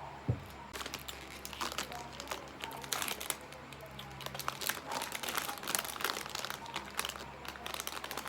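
Ice cream packaging crinkling as it is handled, many quick crackles lasting several seconds. A single low thump comes just before the crinkling starts.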